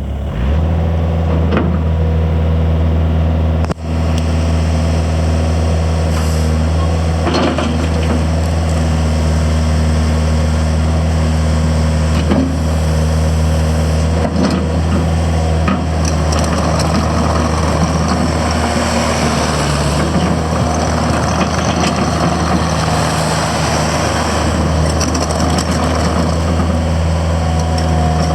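Mustang MTL16 track loader's diesel engine running at a steady speed, a deep even drone, with a brief drop in level about four seconds in.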